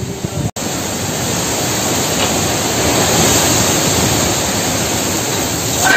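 Strong storm wind in a dust storm, a steady, loud rushing noise that cuts out for an instant about half a second in.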